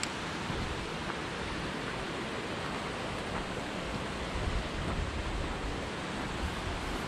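Wind blowing across the microphone: a steady rushing hiss with an uneven low buffeting rumble underneath.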